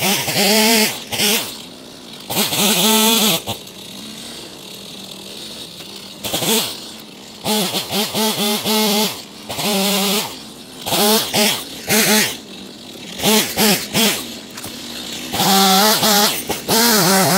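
Gasoline chainsaw revving to full throttle in about eight bursts while cutting a fallen tree, the engine winding up and down and dropping back to idle between cuts.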